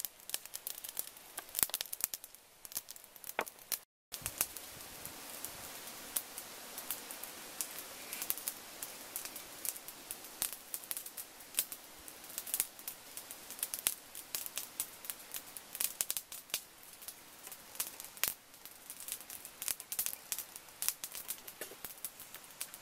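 Chicken wings grilling over glowing charcoal: sizzling with many sharp crackles and pops. The sound drops out for a moment about four seconds in, then a steady hiss runs under the crackling.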